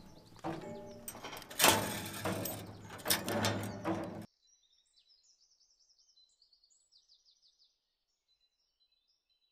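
Black metal compound gate being pulled open and swung shut, with loud metallic clanks and knocks. About four seconds in the sound cuts off abruptly, leaving faint bird chirps.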